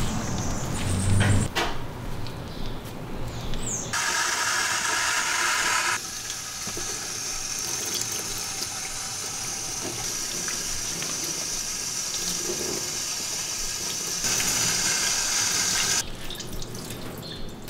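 Water from a hand-held shower hose spraying and splashing over a small wet dog in a plastic bath tub. The spray comes in strongly about four seconds in, and its level shifts abruptly a few times, with scattered knocks and splashes before it.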